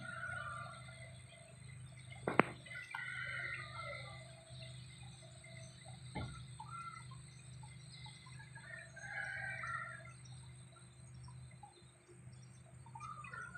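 Faint rooster crowing and other birds calling over a steady low hum, with a sharp click about two seconds in.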